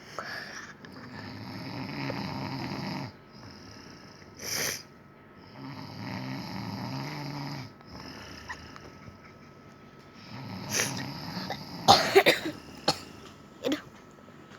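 A man snoring in his sleep: three long snores a few seconds apart, with a short hissing breath between the first two. Near the end comes a loud cluster of sharp, cough-like sounds.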